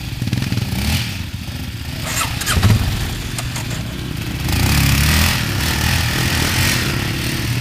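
Single-cylinder quad (ATV) engine running and revving, getting louder about halfway through.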